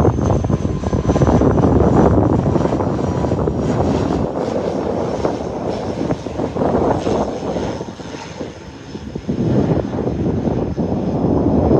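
Engines of an arriving airliner running loud as it passes close by on its landing approach, a steady rushing roar with a thin high whine. The roar eases about two-thirds of the way through, then swells again near the end.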